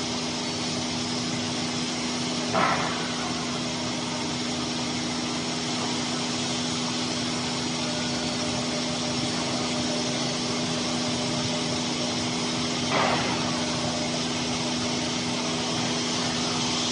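A 5-axis CNC router with a water-cooled 16 kW spindle machining wood: a steady machine hum with fixed tones under a continuous cutting noise. It has two brief louder bursts, one about two and a half seconds in and one near thirteen seconds.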